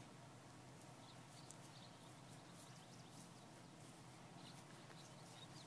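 Near silence: faint outdoor background with a few brief, faint high bird chirps.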